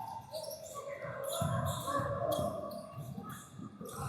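Basketball game noise in a gym: the ball dribbling on the hardwood, with scattered short high-pitched sounds and background voices.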